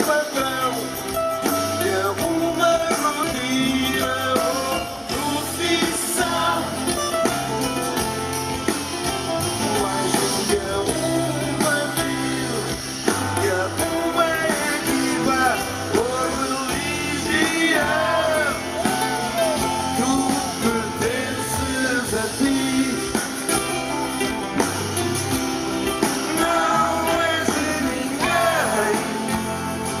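Live pop-rock band playing: several strummed acoustic guitars over bass guitar and drums, with a lead voice singing.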